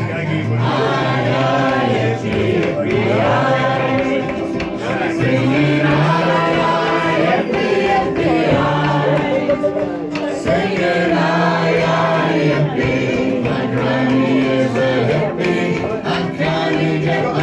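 Live folk music: a fiddle playing with several voices singing along in long, held notes.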